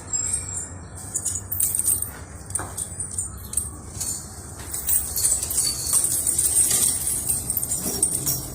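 Pigeons moving about with light metallic jingling and rustle, many small clicks over a low rumble.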